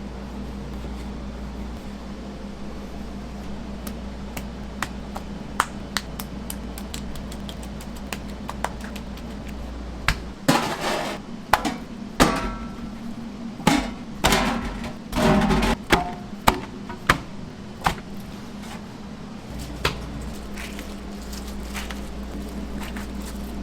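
A run of loud, irregular knocks and bangs of kitchen work, about a dozen in eight seconds, starting a little under halfway through. Under them runs a steady low hum with light scattered clicks.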